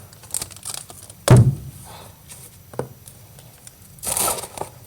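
Handling of unpacked items: one dull thump about a second in, a few light clicks, and a brief rustle near the end.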